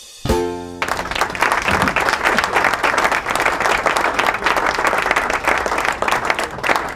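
A short closing chord of music, then audience applause with many hands clapping, starting about a second in and going on steadily.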